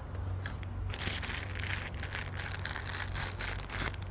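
Plastic packaging crinkling and rustling in irregular crackles as vacuum parts are handled and unwrapped.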